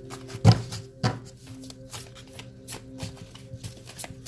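Tarot cards being shuffled and handled by hand: a run of soft card flicks, with two louder thumps about half a second and a second in. Faint background music with held tones runs underneath.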